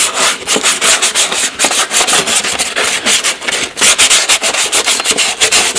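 Medium-grit sanding sponge rubbed by hand in quick back-and-forth strokes over a red plastic ATC200 fender, scouring off the bubbled surface.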